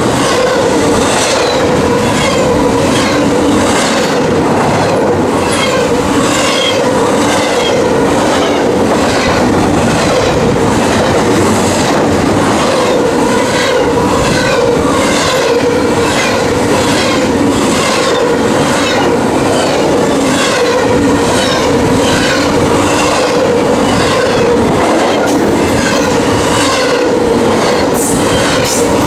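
Freight train cars rolling past, their wheels clicking over rail joints about twice a second in a steady clickety-clack, with a steady whine from the wheels underneath.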